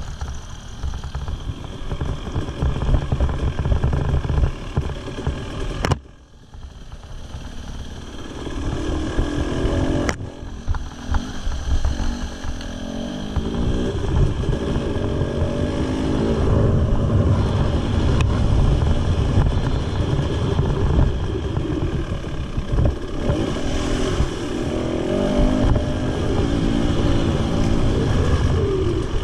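Husqvarna TE300 two-stroke enduro motorcycle engine running while ridden on a dirt trail, the revs rising and falling with the throttle. About six seconds in the sound breaks off sharply and drops, then builds back up.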